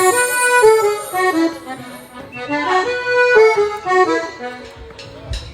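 Accordion playing a melody line of short stepped notes: the opening of a Colombian cumbia medley.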